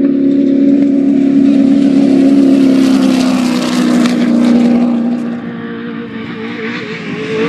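Off-road race vehicle's engine running hard at high revs, its pitch sagging slowly, then backing off about five and a half seconds in and picking up again near the end.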